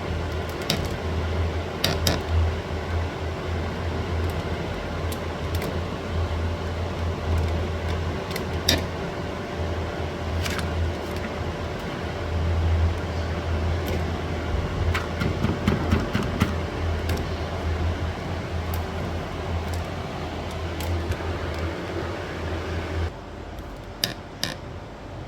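Sheet metal being worked by hand: scattered metallic clinks and taps over a steady low hum, which stops near the end.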